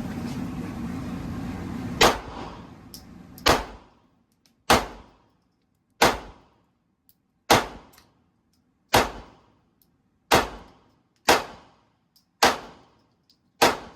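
A 9 mm handgun fired in a slow string of about ten single shots, roughly one every second and a half. A steady background noise runs under the first two seconds, before the first shot.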